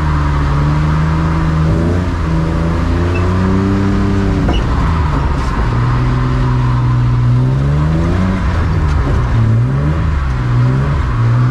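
BMW E36 drift car's engine running under way, its pitch climbing and falling as it revs. About four and a half seconds in, with a click, the revs drop sharply, then climb again and waver up and down near the end.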